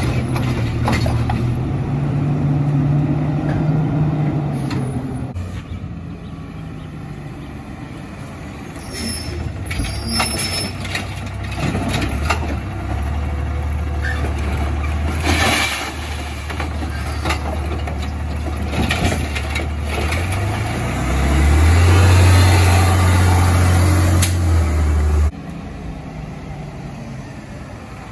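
Garbage truck at work: its diesel engine runs, then revs higher for a few seconds near the end and drops back suddenly, with scattered clanks and hisses of air.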